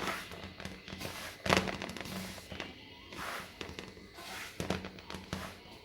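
Kitchen pots and utensils being handled: scattered knocks and clatters, the sharpest about a second and a half in, with more near the end.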